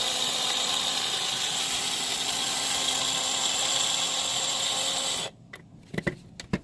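Electric spice grinder running steadily, its blades grinding raw coriander seeds into powder. About five seconds in the motor stops, followed by a few sharp clicks.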